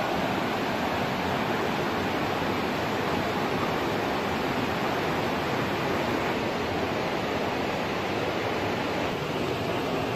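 Steady rush of fast-flowing river water over rapids, an even roar with no breaks.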